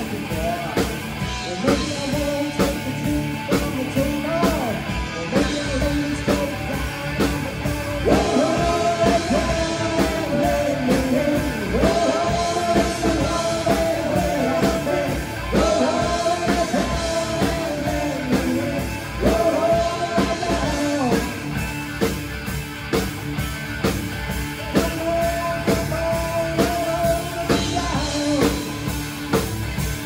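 Rock band playing live: a singer over electric guitars through Marshall amplifiers, bass and a drum kit, with a steady driving beat.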